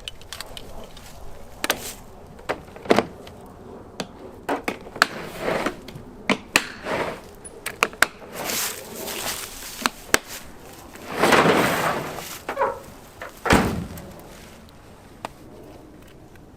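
Gear being handled: a scatter of sharp clicks and knocks with rustling swishes between them, and one heavy thump about 13.5 seconds in.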